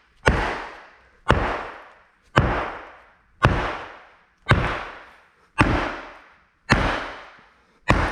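A small sledgehammer pounding a concrete slab that has been drilled full of holes to weaken it, breaking it up. Eight even blows, about one a second, each with a long echoing decay.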